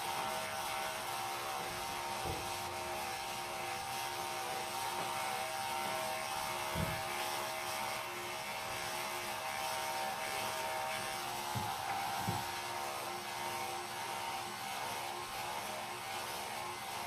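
Electric dog-grooming clippers running steadily with a buzzing hum as they trim a dog's coat, with a few soft low thumps along the way.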